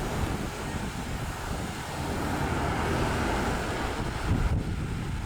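Car driving, with engine and road rumble under heavy wind noise on the microphone; likely the 2019 Corvette Z06's supercharged 6.2-litre V8.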